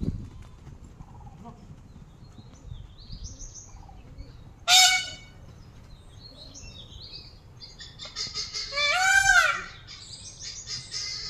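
Two loud animal calls: a short one about five seconds in and a longer one of several quick wavering notes about nine seconds in, with small birds chirping from about eight seconds on.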